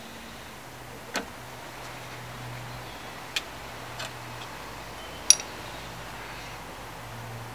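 A few sparse, sharp metallic clicks and taps from a hammer and centre punch handled against a metal pannier bracket, the loudest a ringing tap about five seconds in, over a low steady hum.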